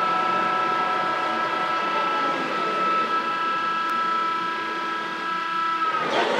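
Lansing hollow-spindle lathe running with its chuck spinning, giving a steady machine whine. A little after six seconds the whine dips in pitch and sweeps back up.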